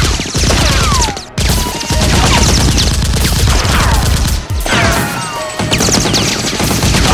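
Dubbed-in automatic gunfire sound effects: rapid bursts of shots with falling bullet-whizz whines, breaking off briefly a little over a second in.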